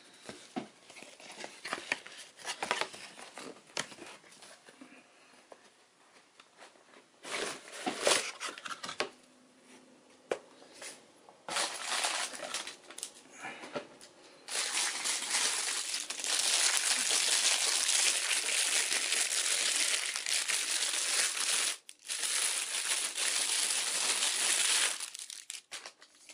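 Cardboard lens box and paper packing handled with scattered rustles and light taps, then a plastic bag crinkling loudly and continuously for about ten seconds as the lens is pulled out of it, with a short pause partway through.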